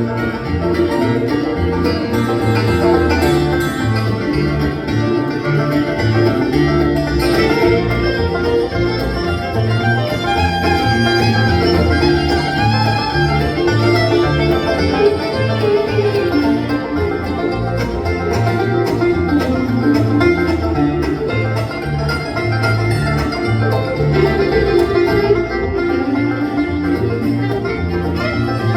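Bluegrass band playing an instrumental break with banjo, guitar and fiddle over a bass line that alternates between notes.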